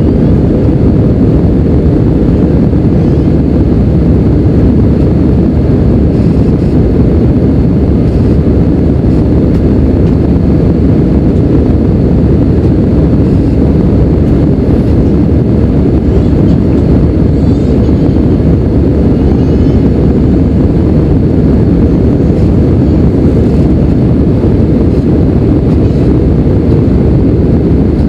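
Steady low rumble of jet engines and rushing air inside the cabin of an Airbus A319 climbing after takeoff.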